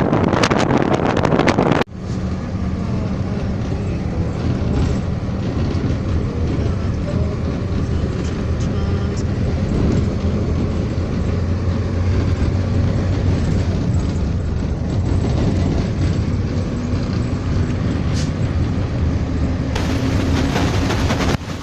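Mercedes-Benz LO-812 bus's OM-364 LA turbo diesel running steadily with an even drone. A loud rushing noise covers it for the first couple of seconds and cuts off suddenly.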